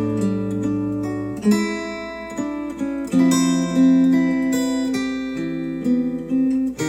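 Acoustic guitar music with strummed chords changing every second or two, played back through Wharfedale Denton 80th bookshelf speakers driven by a NAD C 388 integrated amplifier.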